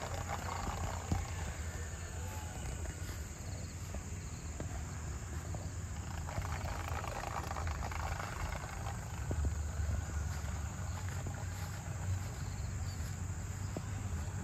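Outdoor field ambience: wind rumbling steadily on the microphone, with faint insect chirping behind it.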